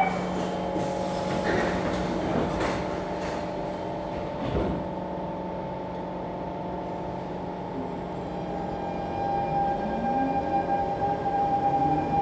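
Siemens C651 metro train: door clunks in the first few seconds, then a steady hum from the car while it stands. About nine seconds in, the traction motors start a rising whine as the train pulls away.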